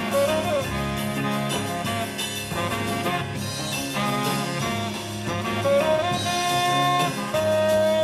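Jazz music played back through hi-fi loudspeakers and picked up in the room, with a lead melody instrument holding long, slightly bending notes in the second half.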